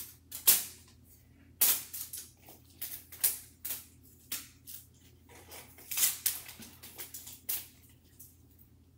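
Thin plastic wrapping crackling and tearing in quick, irregular snaps as its strip is peeled off a plastic toy mystery egg. The snaps stop a little before the end.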